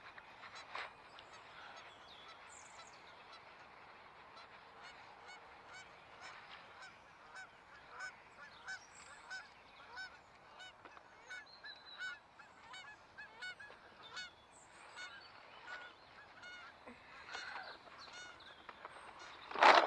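Geese honking in a steady run of short calls, about two a second. Near the end there is one loud splash as a hooked northern pike thrashes at the surface.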